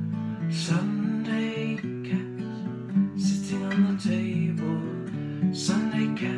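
Music: a song accompanied by strummed acoustic guitar, in an instrumental stretch between sung lines.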